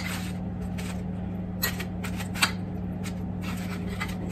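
Metal spoon scraping against aluminium foil, with the foil crinkling, as fish is scooped from a foil packet: a few short clicks and rustles at irregular moments. A steady low hum runs underneath.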